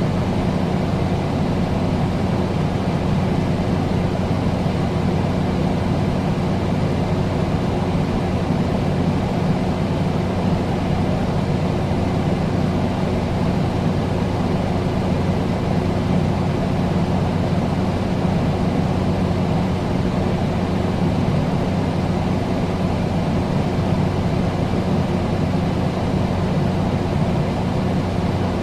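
Air conditioner running steadily: an even rush of fan air over a constant low hum, with no change in speed.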